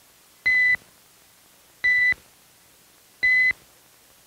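Three short electronic beeps at a steady high pitch, evenly spaced about a second and a half apart: a timing tone counting off the pause for the viewer to decide whether to shoot.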